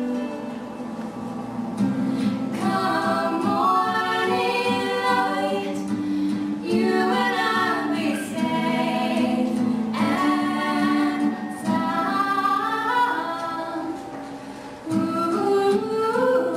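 Two young female voices singing a slow pop ballad duet, partly in harmony. The singing eases off briefly near the end and then swells again with a rising phrase.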